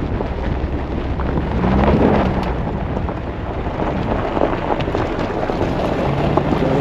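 Off-road vehicle driving on a dirt trail: engine running under a dense rumble of tyres crunching over gravel and rocks, the engine rising briefly about two seconds in.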